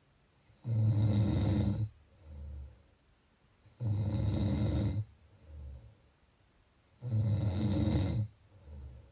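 A sleeping person snoring: three loud, low, rattling snores about three seconds apart. Each is followed by a quieter, shorter breath.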